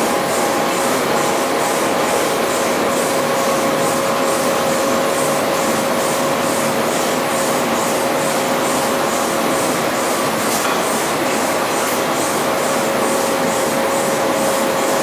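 EcoStar industrial washer extractor running with water and washing churning in its drum: a loud, steady machine hum with a quick, even pulsing throughout.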